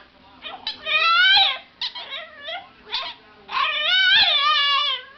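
An animal calling three times with loud, high, wavering cries, the last and longest lasting about a second and a half.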